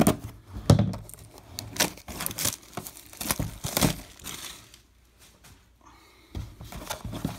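Clear plastic shrink-wrap being slit and pulled off a cardboard blaster box of trading cards, crinkling and tearing in a run of sharp crackles. There is a quieter spell about two-thirds of the way through, then more crinkling near the end.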